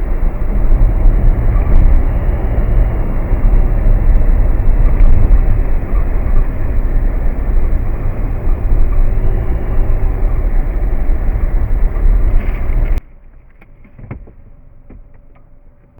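Suzuki Jimny JB64W on the move, a loud low rumble of road and wind noise. It cuts off suddenly about thirteen seconds in, leaving a much quieter stretch with a few sharp clicks.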